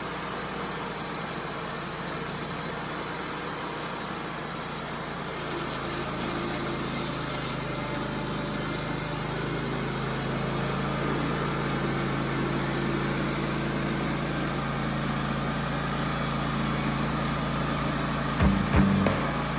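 Wood-Mizer LT35 portable band sawmill running steadily: its engine and band-saw drive run at an even pitch, with a strong high hiss. Plucked music comes in near the end.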